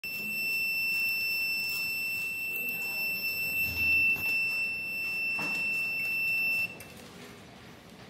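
Electronic buzzer of the Raspberry Pi seat-belt detection circuit sounding its warning: one steady high-pitched tone held for nearly seven seconds, then cutting off suddenly.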